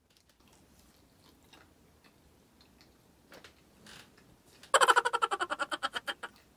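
A rapid clock-like ticking sound effect, about a dozen ticks a second, starts suddenly near the end and fades out over about a second and a half. Before it there are only faint small clicks.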